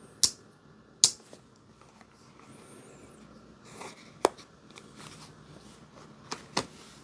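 Sharp clicks and snaps from handling slip-joint pocket knives: a few separate clicks, the loudest near the start, about a second in and just past the middle, with two lighter ones near the end.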